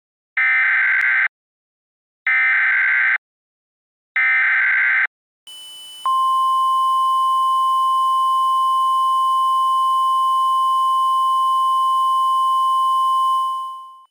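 Emergency Alert System end-of-message signal: three short raspy digital data bursts, each about a second long with a second's gap, marking the end of the alert. After them a hiss comes in, then a steady pure tone that fades out just before the end.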